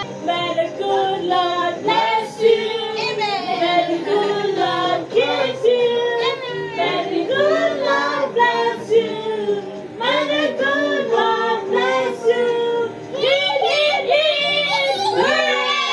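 A song playing, led by high-pitched singing over music.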